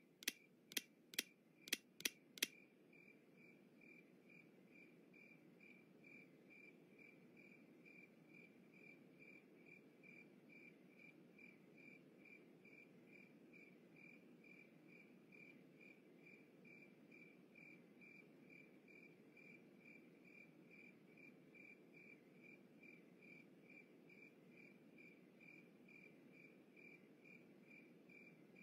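Crickets chirping steadily in an even rhythm, night-time ambience. In the first couple of seconds, six sharp clicks, a flashlight switch being clicked on and off to signal.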